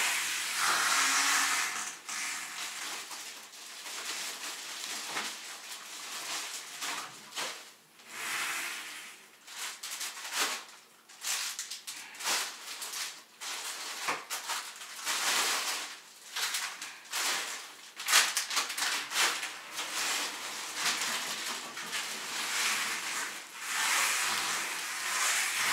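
Plastic shopping bags and food packaging rustling and crinkling in irregular bursts as groceries are taken out and handled.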